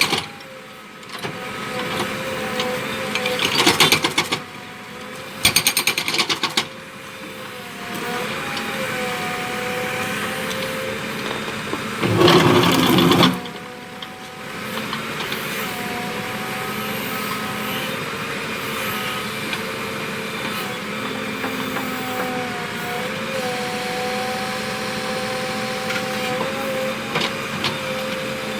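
A JCB earth mover's engine running steadily with a whine that dips in pitch now and then, while its hydraulic concrete breaker hammers in two short bursts of rapid strokes a few seconds in. Around the middle comes a louder burst of noise lasting about a second and a half.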